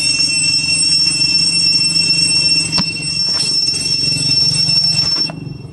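Steady, high-pitched buzzing drone of cicadas with a low hum beneath, a few faint ticks through it; the drone cuts off abruptly about five seconds in.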